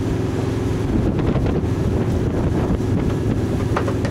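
Small boat underway with its engine running steadily, and wind buffeting the microphone.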